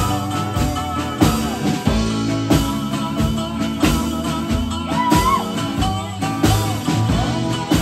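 Live blues-rock band playing: a steady drum beat under acoustic guitar and lap steel guitar, with a sliding note rising and falling around the middle.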